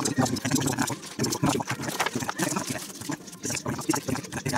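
Thin printed Depron foam sheet and kit parts being handled: irregular crackling, tapping and scraping as the pieces are moved on a cutting mat.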